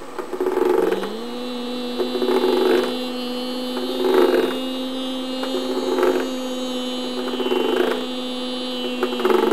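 A person humming one steady, wordless note that steps up in pitch about a second in and then holds. Over it, a hand brushes across a textured surface in rustling strokes about every one and a half to two seconds.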